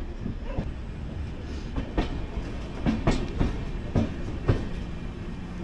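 Indian Railways passenger coach running along the track: its wheels clack over rail joints at uneven intervals, roughly two a second, over a steady low rumble.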